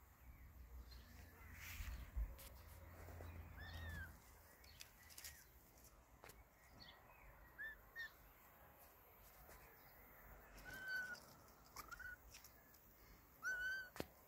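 Young kittens mewing: about six short, high-pitched mews scattered through, the loudest near the end, over a low rumble in the first few seconds.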